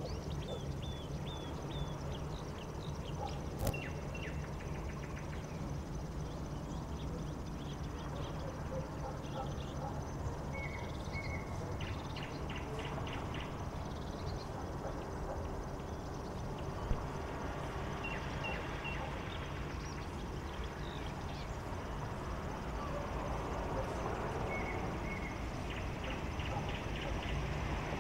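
Night-time street ambience: a steady low hum with birds chirping and trilling now and then over it. Near the end the noise swells as a vehicle comes closer.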